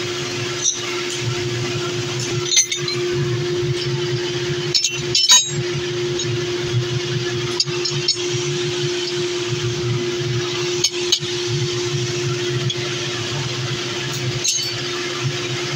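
Steady machine hum with one held tone, overlaid by scattered sharp metallic clinks, about nine in all, as steel pieces are handled.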